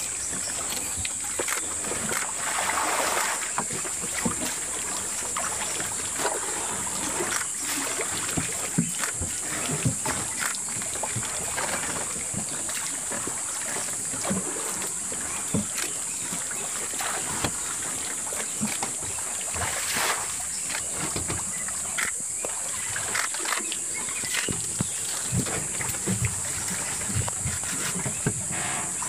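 Water splashing, sloshing and trickling as African elephants drink and wade in a shallow lake, sucking up water with their trunks and letting it pour out. There are scattered short splashes throughout, over a steady high-pitched buzz.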